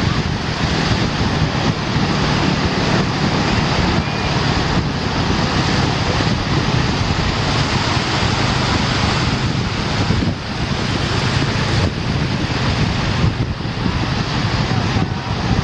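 Sea surf washing onto a beach, a steady rushing noise, with wind buffeting the microphone.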